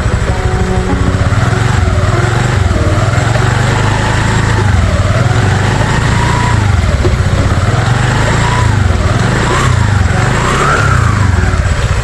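Honda Vario scooter's engine and CVT being revved up and down over and over, the pitch rising and falling about every two seconds. This is the kind of run used to check for CVT noise.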